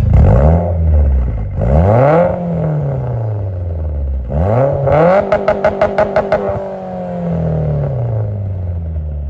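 Motorcycle engine revving sharply three times, each rev falling away slowly. The third rev has a rapid run of even pulses near the middle.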